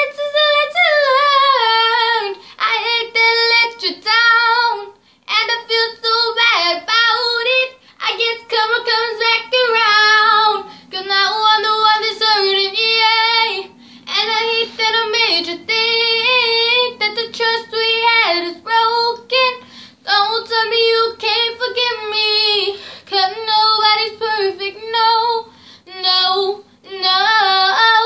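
A teenage girl singing a pop ballad solo, phrase after phrase, with short breaks for breath between lines.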